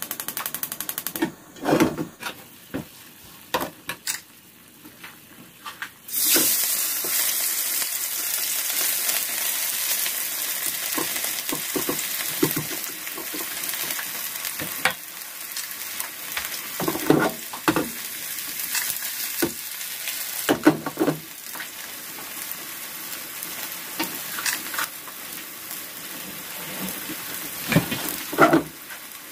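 Buckwheat and chive pancake batter sizzling in hot oil in a nonstick frying pan. The sizzle starts suddenly about six seconds in, after a few light knocks, and goes on steadily with occasional knocks of utensils against the pan.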